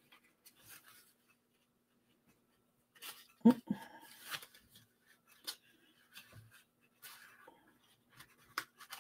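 Cardstock paper sleeve being slid over a paper candy bar box: soft, scattered rustles, scrapes and light clicks of paper, busiest from about three to five seconds in. A short low vocal hum sounds about three and a half seconds in.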